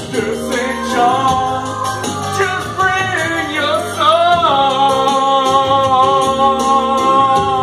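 A song with a singer holding long notes and bending one up and down about four seconds in, over instrumental backing with a light shaker-like beat.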